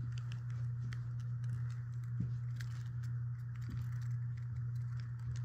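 A Rubik's cube being handled, giving faint, scattered small clicks over a steady low hum.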